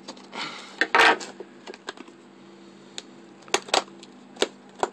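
Handling noises from the camcorder's cardboard packaging: a short rustle and a sharp knock about a second in, then several separate clicks and taps.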